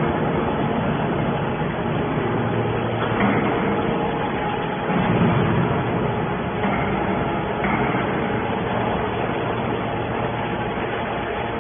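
Hydraulic scrap metal baler running: steady machine noise, with a few louder stretches about three, five and seven seconds in.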